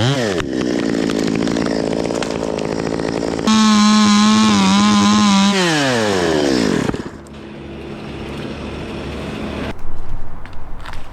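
Two-stroke chainsaw revved in quick bursts, then held at full throttle for about two seconds. It winds down to a lower idle, and a few sharp knocks or cracks follow near the end.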